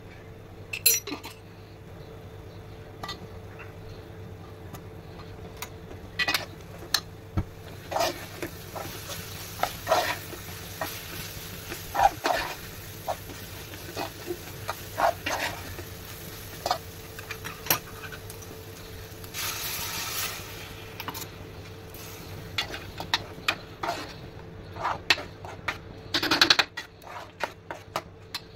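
A steel spoon stirring a thick curry in an aluminium pot, clinking and scraping against the pot's sides at irregular intervals, with a cluster of louder clinks near the end. A faint steady hum runs underneath.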